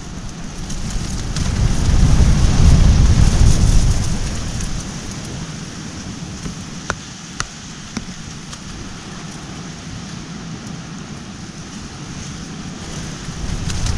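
Strong wind gusting over the microphone: a low rumbling buffet over a steady hiss, swelling about a second in and easing off after about four seconds, with a few small clicks near the middle.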